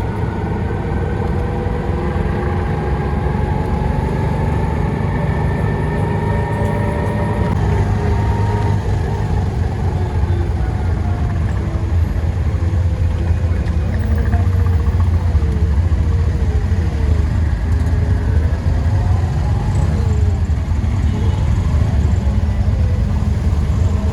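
Motor vehicle running with a steady low rumble, with faint wavering tones above it.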